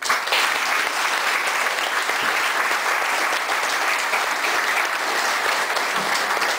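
Audience applauding: a dense, steady round of hand-clapping that starts suddenly and holds evenly throughout.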